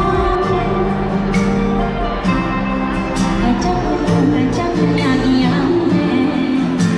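Pop music with singing over a band, with a steady bass line.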